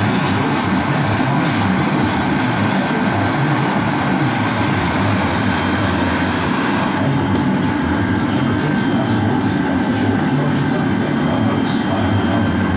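Handheld gas torch running as its flame heats the neck of a glass bottle: a steady rushing hiss over a continuous low rumble. The hiss thins a little about halfway through.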